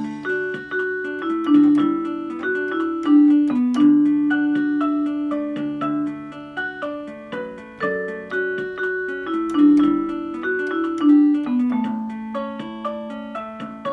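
Electronic keyboard playing music: a one-handed melody over the keyboard's built-in demo accompaniment, in a bell-like piano voice. The notes come in a steady run, some held longer than others.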